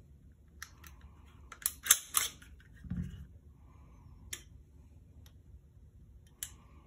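SIG Sauer P365 XL pistol being field-stripped: a series of sharp metallic clicks and clacks as the slide is worked off the frame, with a duller thump about three seconds in as a part is set down on the mat.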